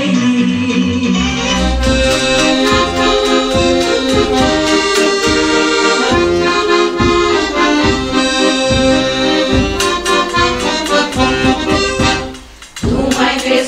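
Accordion playing a folk tune over a steady beat. The music breaks off briefly near the end.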